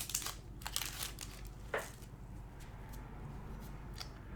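Trading cards and their foil pack wrapper being handled, with crinkling and rustling during the first second and a sharp snap just under two seconds in, then only light handling noise.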